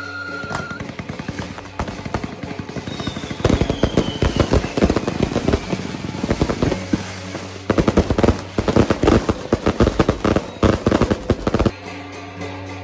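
A string of firecrackers going off in a dense, rapid crackle of pops. It builds to its loudest in the second half and cuts off suddenly near the end.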